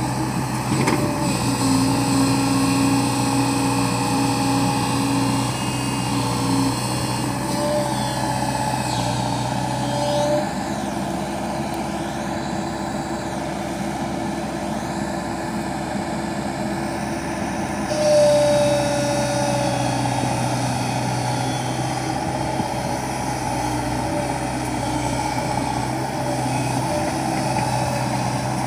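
Diesel engine of a JCB 140 tracked excavator running steadily under working load while digging and loading a dump truck. The engine note eases off for several seconds in the middle, then picks up again with a brief louder whine.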